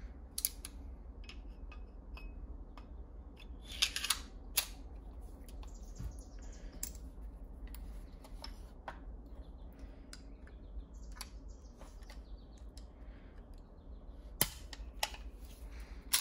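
Scattered sharp metallic clicks and small scrapes as the all-steel CZ 97B pistol is put back together by hand: guide rod and recoil spring going in and the slide being fitted back onto the frame. The loudest clicks come in a cluster about four seconds in and once more near the end, over a steady low hum.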